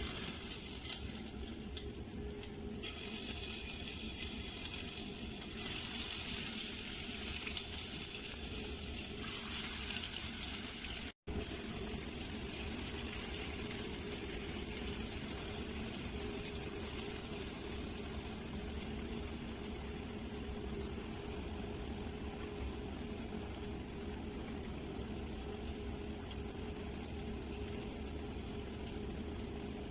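Spice-coated chena (elephant foot yam) pieces sizzling as they deep-fry in hot oil in a pot. The sizzle is louder and more uneven for the first ten seconds or so while more pieces are dropped in, then settles to a steady sizzle.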